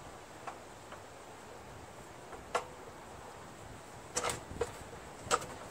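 A handful of sharp metal knocks and clunks, scattered over several seconds and some with a short ring, as a Predator 212cc engine is shifted by hand on a plate compactor's steel mounting plate.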